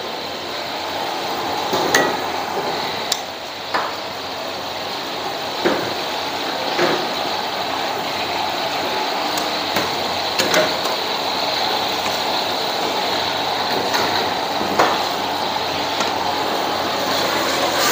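Steady kitchen background noise with irregular knocks and clinks of metal utensils against pots and pans, about eight over the stretch.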